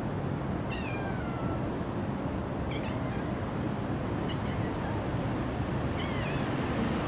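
Cats meowing several times, the longest call a falling meow about a second in and shorter ones later, over steady low background noise.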